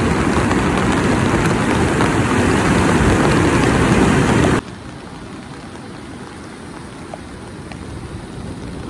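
Rain and surf: a steady loud rush, heaviest in the low end, that drops abruptly about four and a half seconds in to a quieter hiss.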